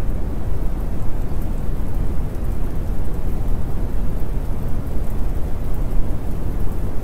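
Steady rain-and-thunder ambience: an even, unbroken noise heaviest in a low rumble, with no distinct events.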